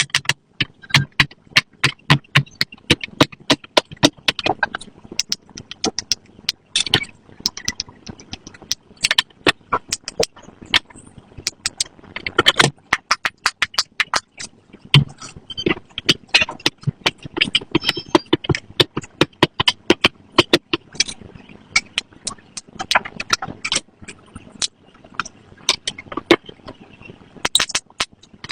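Silicone pop-it fidget toy bubbles being pressed in and popped by fingers: a rapid, irregular series of sharp pops, several a second.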